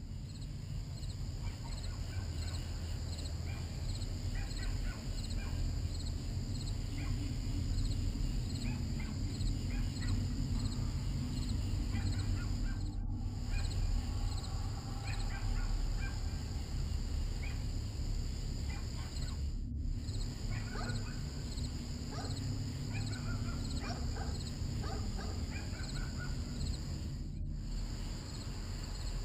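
Outdoor night ambience: crickets chirping steadily, over a low rumble, with scattered short animal calls. The sound cuts out briefly three times, about 13, 20 and 27 seconds in.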